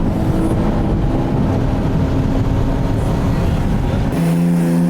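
Car engine and road noise heard loudly from inside a car under hard acceleration, with the engine note dropping once about a second in. Near the end, the rumble falls away to a few steady tones.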